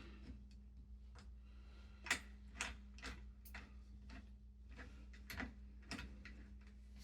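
Irregular light clicks and taps of smart-lock hardware and screws being handled and fitted by hand, over a faint steady low hum.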